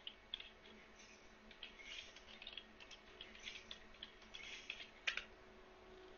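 Faint typing on a computer keyboard: a run of irregular key clicks, with a sharper click about five seconds in.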